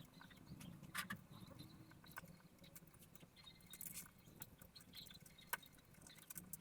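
Faint, scattered clicks and scratchy rustles of power supply cables being handled and tucked into a PC case during cable management, over a low steady hum.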